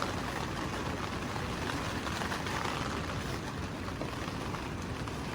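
Steady rushing outdoor noise of wind and water, even throughout with no distinct events.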